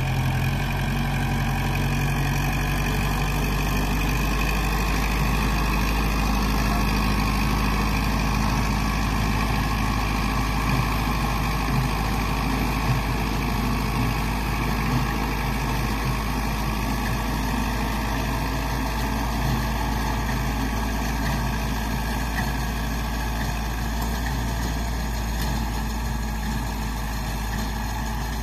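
Kubota tractor's diesel engine running steadily at low speed as it pulls a cassava planter along the ridges.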